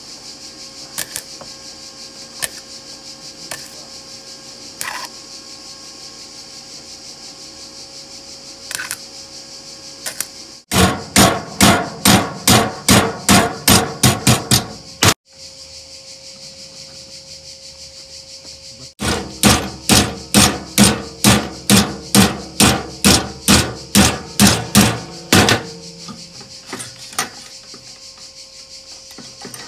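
Hammer striking metal on the van's bodywork in two fast, even runs of blows, about three to four a second, the first around a third of the way in and the second, longer one in the middle. A few single knocks come before them, over a steady hum.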